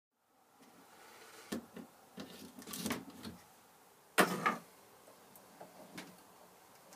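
Handling noises at a bench vise: a few knocks and rattles, the loudest a sharp clunk about four seconds in followed by a second, and a light click about six seconds in.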